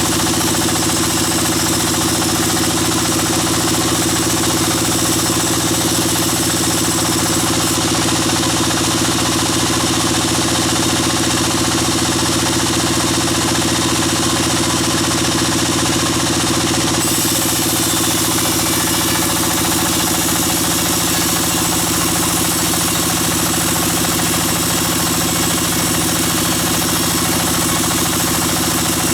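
Bandsaw sawmill running steadily, a constant loud mechanical drone with no breaks or changes.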